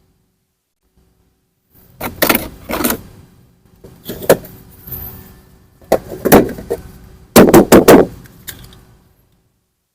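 Plastic toy rifle being handled: after about two seconds of quiet, a string of clicks, clacks and rattles in several clusters, the loudest a quick run of clicks about seven and a half seconds in.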